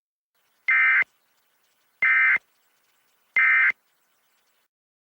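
Emergency Alert System end-of-message code: three short bursts of SAME digital data tones, about a second apart. The bursts mark the end of the alert, here closing a required monthly test.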